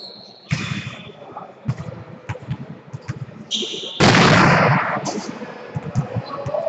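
Volleyball play in an echoing sports hall: sudden hard hits of the ball, with players' voices between them. The hits come about half a second in and about four seconds in; the later one is the loudest and rings on for about a second.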